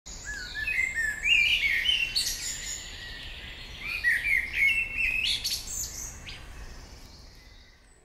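Birdsong: many quick high chirps and short trills, fading out over the last couple of seconds.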